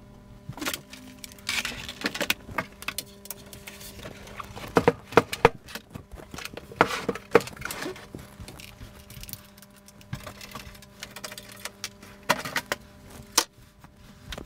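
Irregular clicks, knocks and light rattles of a desktop PC's case and parts being handled, with a few sharper knocks scattered through, over a faint steady hum.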